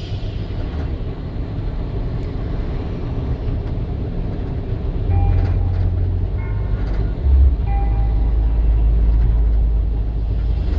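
Steady low engine and road rumble inside a bus cruising on an expressway, growing heavier about five seconds in.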